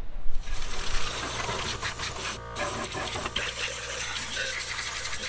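Compressed-air blow gun blowing out the passages of a bare engine block: a steady hiss of escaping air, broken by a brief pause about halfway through.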